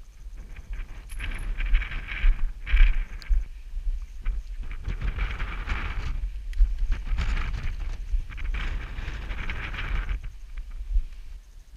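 Wind buffeting the camera's microphone in a steady low rumble, with louder rushing bursts every second or two. Scattered knocks and scrapes of boots and hands on rock come as the climber scrambles up.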